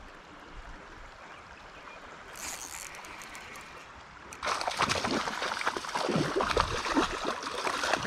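Hooked smallmouth bass splashing and thrashing at the water's surface, starting about four and a half seconds in and running on loudly and irregularly. Before it, only the low hiss of flowing river water, with a short hiss about two and a half seconds in.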